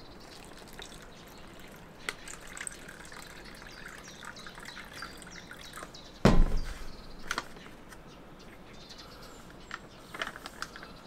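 Water poured from a bottle into a small plastic pouch, trickling as the pouch fills. A single loud thump comes about six seconds in, and a few light clicks near the end.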